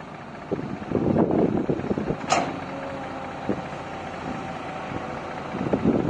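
Caterpillar excavator running while loading a truck, its engine a steady drone. Bursts of rough clattering come about a second in and again near the end, with one sharp clank a little after two seconds.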